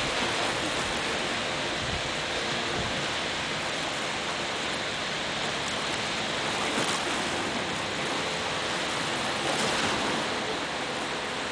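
Small surf washing onto a beach as a steady rush, with the faint steady drone of a jet ski engine running out on the water.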